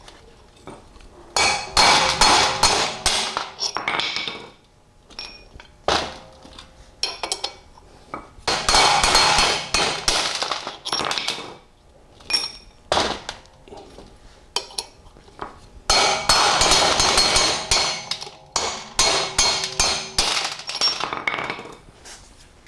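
Hammer driving a steel punch against the interference-fit pinion pins of a Powerglide planetary carrier to knock out the long gears. The sharp metal-on-metal strikes come in three long runs of rapid blows, with short pauses between.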